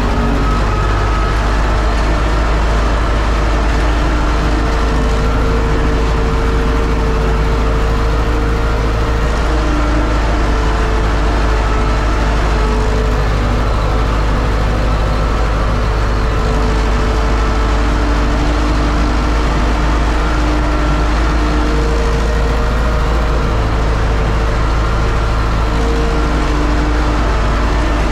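UTB Universal 650 tractor's four-cylinder diesel running steadily and loudly under load, pulling a disc harrow, heard from inside the cab.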